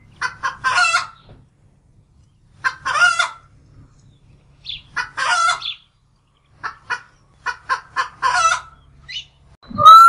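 Domestic chickens calling: bursts of quick short clucks, each ending in a longer squawk, come about every two seconds.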